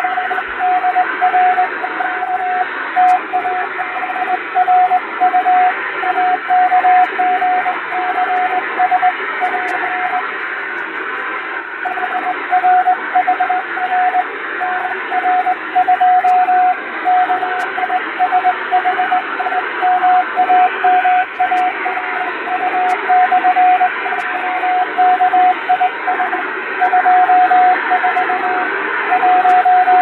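Morse code keyed by hand on a straight telegraph key, heard as a single steady tone switching on and off in dots and dashes over shortwave receiver hiss with fading. The keying breaks off briefly about ten seconds in.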